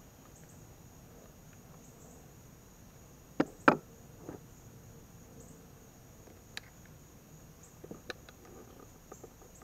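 PVC pipe fittings being pushed and knocked together as a glued joint is seated: two sharp knocks a few seconds in, then a few lighter clicks near the end. A steady insect chirping runs underneath.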